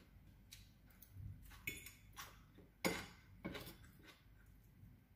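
Metal fork clinking and scraping against a ceramic salad bowl while picking up salad: a handful of short, light clinks, the sharpest about three seconds in.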